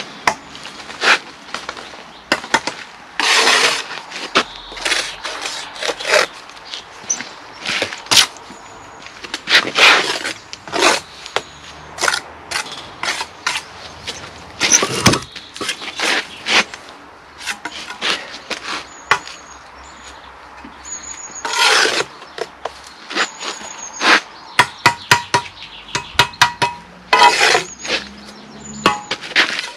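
Steel trowel and concrete blocks being worked: irregular sharp knocks and scrapes as mortar is spread and blocks are tapped down into place.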